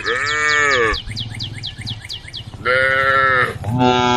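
Cows mooing: three short calls, one at the start that rises and falls in pitch, and two close together in the second half.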